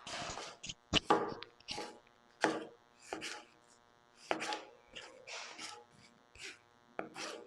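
Knife cutting a tomato on a cutting board: a series of short cutting strokes, unevenly spaced, roughly one every half second.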